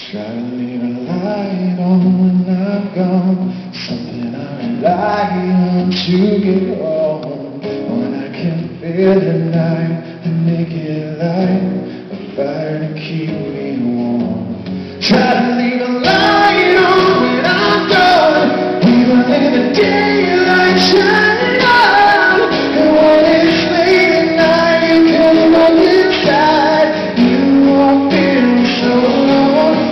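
Live acoustic song: a man singing to two acoustic guitars. The playing grows fuller and louder about fifteen seconds in.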